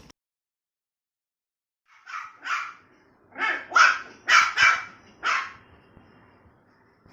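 Puppy barking seven times in quick short barks, in protest at being left stranded up on a height.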